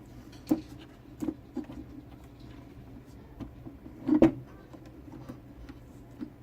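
Hands wrapping electrical tape around a wiring splice, giving a few short clicks and knocks, the loudest about four seconds in, over a steady low hum.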